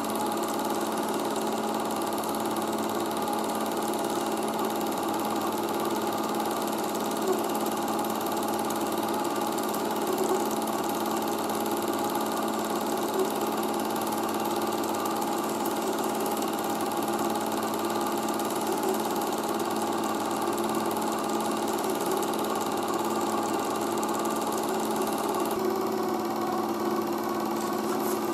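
Super 8 film projector running: a steady motor whir with a fast, even shutter-and-claw clatter. There is no sound from the film itself, since the home movie is silent.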